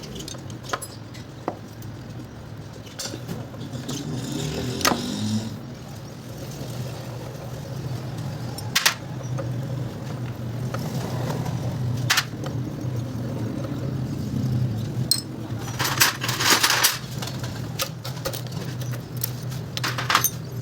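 Spanner and metal parts clinking as the 9 mm nuts on a small motorcycle engine's top end are undone: scattered sharp clicks, with a longer rattle of small metal parts about three quarters of the way in and again near the end. A steady low hum runs underneath.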